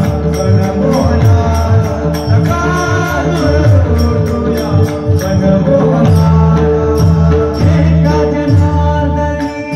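Marathi devotional kirtan: a man singing a bhajan with a steady clash of small hand cymbals about three times a second, low drum strokes and a held steady drone beneath.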